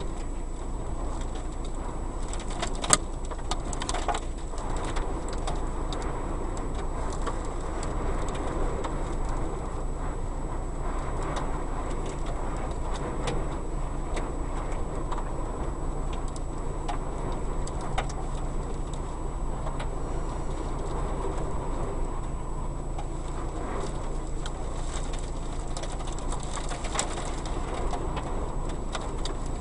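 Strong wind blowing over the microphone: a steady rumbling noise with scattered clicks and knocks, one sharper knock about three seconds in.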